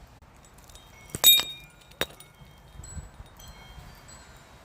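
A metallic clink with bright high ringing about a second in, a sharp click a second later, then faint scattered high tinkling.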